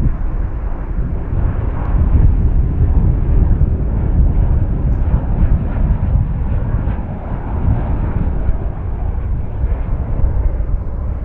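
Jet airliner engine noise, a steady low rumble that dips slightly about two-thirds of the way through.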